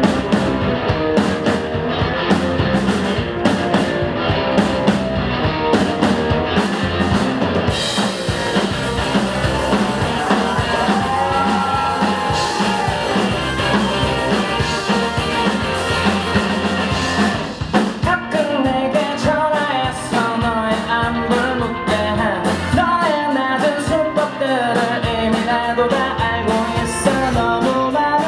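Live indie rock band: drum kit and electric guitars playing an instrumental passage, then a male lead vocal comes in about two-thirds of the way through.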